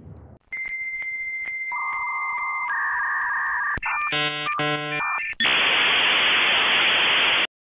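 Synthesized electronic sound effect: steady tones that step between pitches, a rapid stutter of beeps, then loud static hiss that cuts off suddenly, a droid-malfunction glitch sound.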